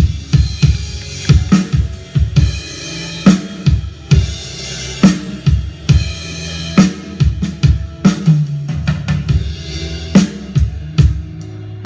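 Multitrack recording of a band played back through a mixing console: a drum kit with kick, snare and cymbals beating out a groove over bass and other pitched instruments.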